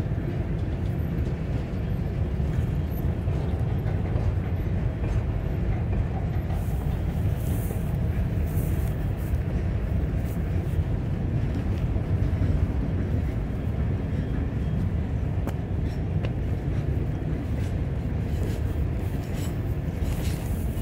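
Freight cars of a Norfolk Southern train, a tank car and then covered hoppers, rolling past at close range. Their wheels on the rails make a steady low rumble with scattered clicks.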